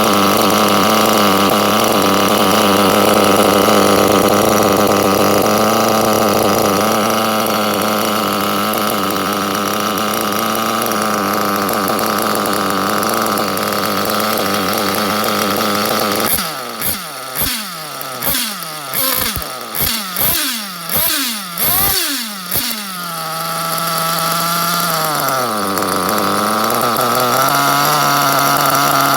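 Performa Radical 7's engine running steadily, then blipped through a quick series of about eight short revs, each rising and falling back, before settling to a steady idle again.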